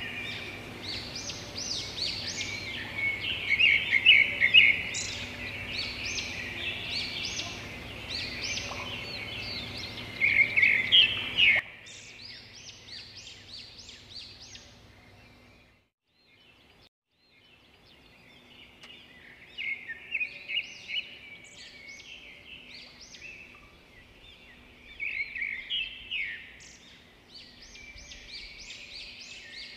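Many birds chirping and singing in short, overlapping calls and trills, like a birdsong ambience track. The singing fades to nearly nothing for a moment about halfway through, then picks up again.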